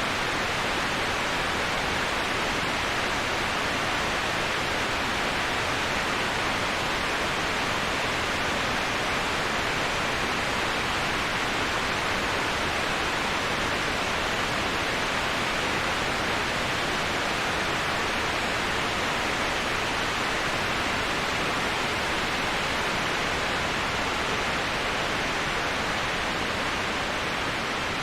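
Steady rushing of a waterfall: an even, unbroken hiss with no separate splashes, no rhythm and no changes.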